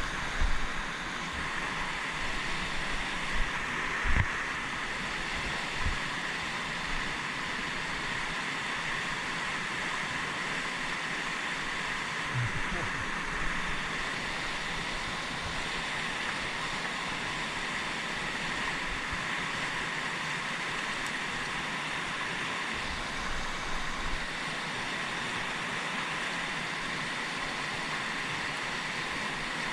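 Steady rushing of a fast mountain river, with a few low thumps in the first several seconds.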